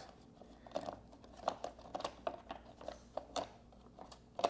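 Faint, irregular plastic clicks and knocks as the cover plate over a Poulan Pro backpack blower's air filter is worked loose by hand.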